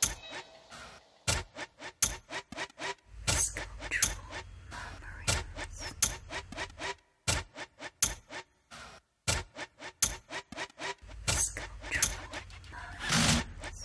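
Sound-design soundscape of irregular sharp clicks and clinks, with a low hum coming in twice for a couple of seconds and a louder noisy burst near the end.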